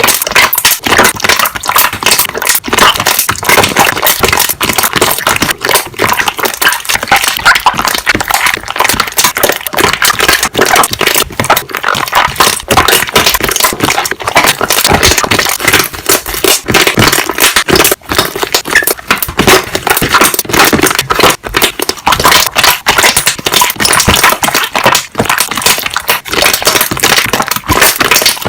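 Slime being pressed and worked so that its trapped air bubbles pop, a rapid, dense run of loud crackling clicks.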